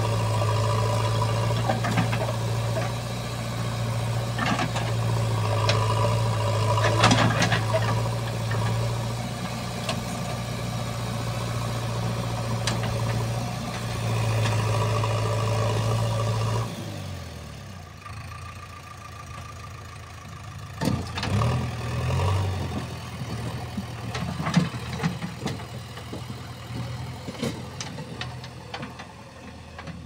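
JCB 3DX backhoe loader's diesel engine running steadily under hydraulic load while the backhoe bucket digs, with occasional knocks and scrapes from the bucket. About 17 s in, the sound cuts suddenly to a quieter, more distant engine with a few thumps.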